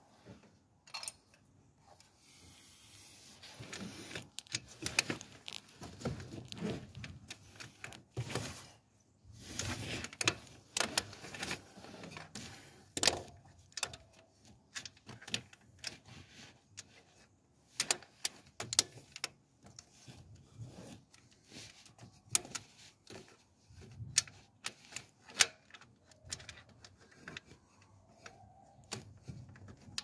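Irregular clicks, clinks and light rattles of hand tools and metal parts being handled during starter motor removal, mixed with rubbing and scuffing close to the microphone.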